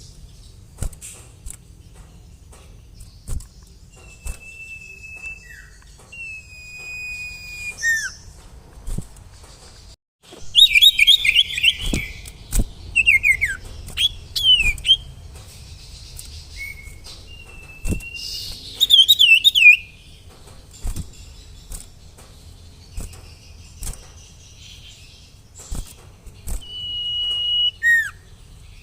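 Sirtu songbird singing. It gives long, level whistled notes in the first few seconds, then loud, rapid twittering trills about a third of the way in and again later. Short sharp clicks are scattered throughout.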